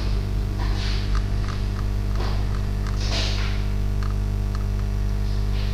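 Steady low electrical mains hum picked up by the recording microphone, with a few faint soft noises scattered through it.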